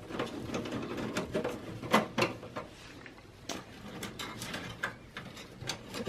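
Screw being driven in with a screwdriver to fasten a hard drive in a computer case: irregular metal clicks and scraping.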